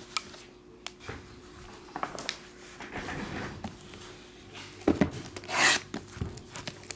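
Shrink-wrapped cardboard trading-card boxes being handled and stacked: plastic wrap rubbing and sliding, with light knocks as boxes are set down. A knock just before the five-second mark is followed by the loudest sound, a short rustling swish.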